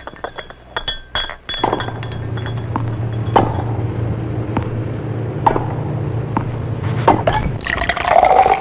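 Glass clinking and a drink being poured, with sharp clinks over a steady pouring sound.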